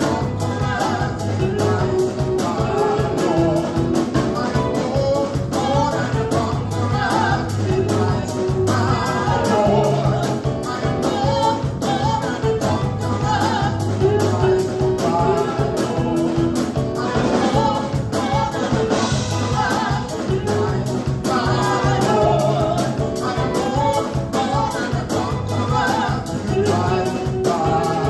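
Live gospel praise band with singers performing an upbeat worship song over a steady drum beat.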